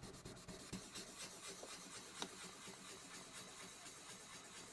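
Faint, steady rubbing of 1200-grit wet-and-dry paper being worked by hand over a small gelcoat repair on fibreglass, with a few light ticks.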